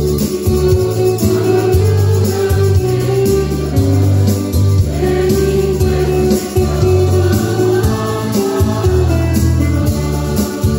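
Church choir singing an Ilocano Gospel acclamation hymn with instrumental accompaniment and a prominent bass line.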